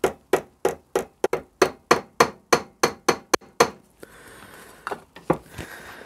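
Small hammer tapping on the metal shell of a motorcycle handlebar switch at a bench vice, closing it back up after servicing. It gives about a dozen quick, even taps, roughly three a second, then stops a little past halfway, leaving a few scattered lighter knocks and handling noise.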